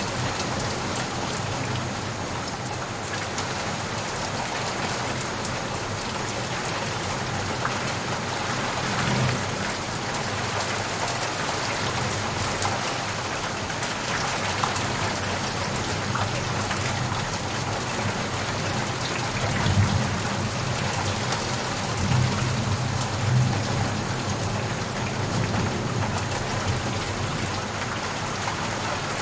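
Steady rain falling, with a few low rumbles of thunder, about nine seconds in and again around twenty seconds in.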